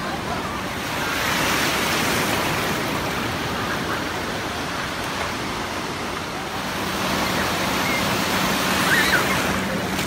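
Ocean surf washing and breaking in a steady rush, swelling louder about a second in and again for the last few seconds.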